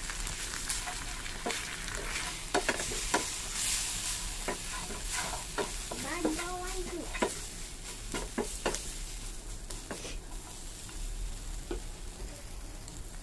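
Wheat flour frying in oil with onions in a pan, stirred continuously: a spatula scraping and tapping against the pan over a steady sizzle.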